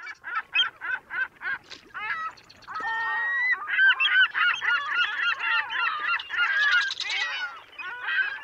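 A flock of geese honking: single honks at about three a second, then from about two seconds in a dense chorus of many overlapping calls.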